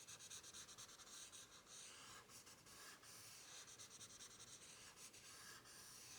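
Faint rubbing of a blending tool on drawing paper, smoothing graphite into the paper's tooth to blend a shaded area, with many quick little strokes.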